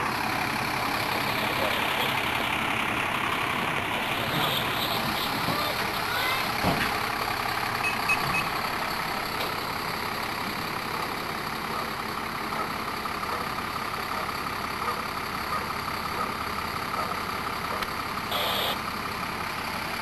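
Fire truck's diesel engine running steadily, with voices of people nearby underneath.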